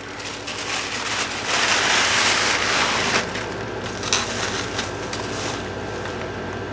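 Plastic bubble wrap being unwrapped and crinkled by hand: a dense rustling stretch starting about a second and a half in and lasting over a second, then a few light clicks and softer handling.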